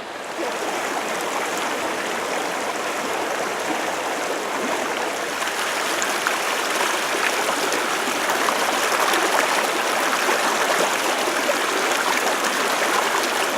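Snowmelt-fed mountain creek running: a steady rush of flowing water that slowly grows louder.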